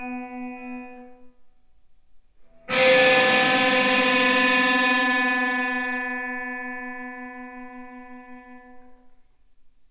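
Electric guitar: a ringing chord fades away, then about three seconds in a loud chord is struck and left to ring, dying away slowly over some six seconds, its low note wavering slightly.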